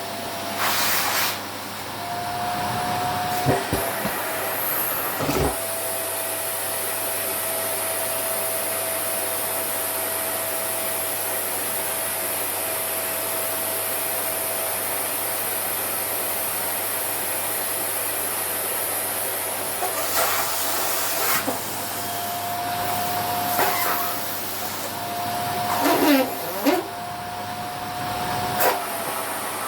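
Vacuum cleaner running with a down jacket fed to its nozzle. The motor's steady tone bends and dips briefly a few times, with a high hiss of rushing air through the middle stretch and scattered knocks and rustles.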